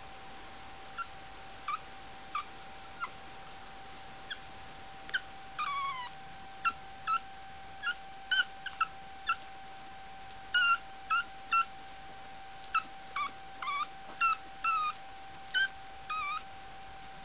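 Month-old puppies squeaking and yipping while they tussle: about twenty short, high-pitched cries at irregular intervals, some dropping in pitch.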